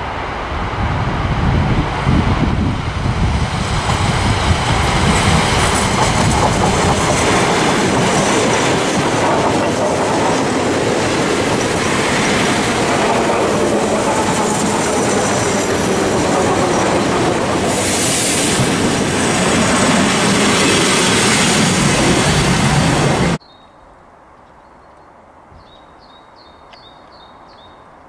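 ER2 electric multiple unit running close past, its wheels clattering over the rail joints with some wheel squeal. About 23 s in the sound cuts off abruptly to a much quieter background with small birds chirping.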